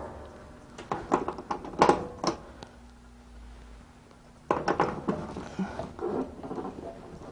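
Handling noises at a popcorn machine's bucket oil pump: several sharp clicks and knocks as its power cord is plugged into the side of the pump, then a run of scraping and rustling as the pump and pail are worked into the cabinet.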